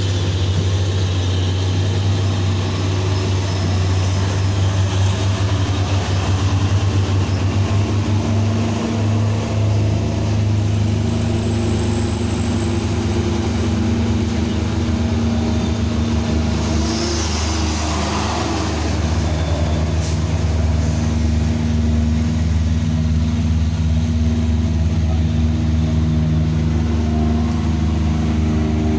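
Heavy truck engine running steadily, its pitch shifting now and then, with a brief hiss about seventeen seconds in.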